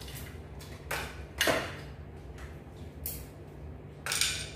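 Cooked mud crab shell being broken apart by hand while eating, with three short, sharp cracking noises: about a second in, half a second later, and near the end.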